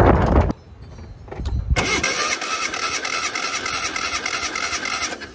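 Starter motor cranking the 1994 Geo Metro XFI's 1.0-litre three-cylinder engine with its spark plugs out, for a compression test on cylinder one, which shows about 150 psi on the gauge. The cranking starts about two seconds in, runs steadily with an even rhythm for about three seconds, then stops. A short burst of noise comes at the very start.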